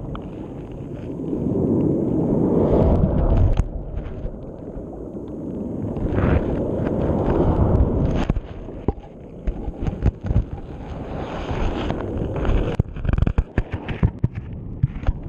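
Underwater sound from a GoPro being dragged along the seabed by the sea: a low rumbling wash that swells and fades in surges, with sharp clicks and knocks of the camera striking stones from about halfway, coming thickest near the end.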